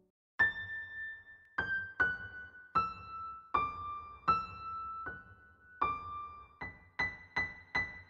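Background music: a slow melody of single electric-piano notes, each struck and left to fade, beginning after a brief silent gap.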